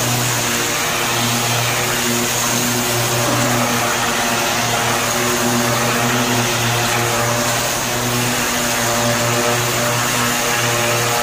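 Steady drone of running machinery, holding one pitch throughout.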